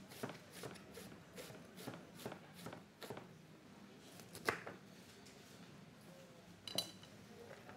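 Faint, irregular rustling and light tapping of sliced vegetables being handled and packed into a jar, with a sharper knock about halfway and a brief ringing click near the end.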